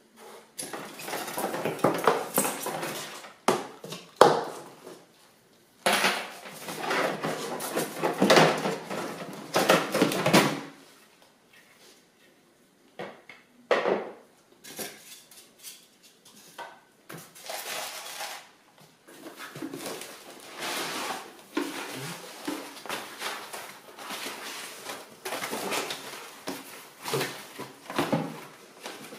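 Unpacking noise: polystyrene foam inserts, plastic wrap and cardboard being handled and pulled about, crackling and rustling with a few sharper knocks. It comes in bursts with pauses of a second or two, and runs more steadily through the second half.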